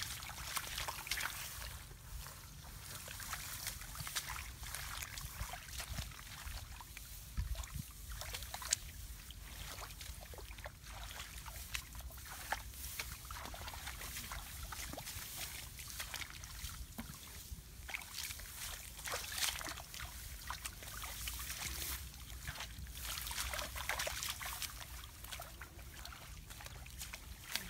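Hands and feet working through wet grass and shallow muddy water: faint rustling, small sloshes and crackles, over a steady low rumble.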